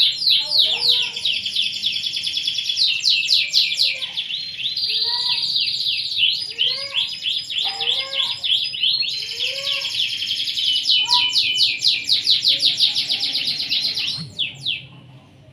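Domestic canary in full song: a long, continuous run of rapid high trills and rolls, switching to a new phrase every couple of seconds, ending shortly before the end.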